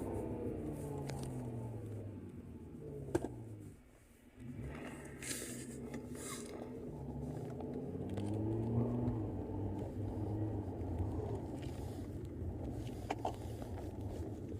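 BMW S85 5.0-litre V10 running under way with Eventuri carbon-fibre intake plenums. The engine's pitch falls, a sharp click comes about three seconds in, the sound drops away briefly just after, then the engine picks up again and rises in pitch later on.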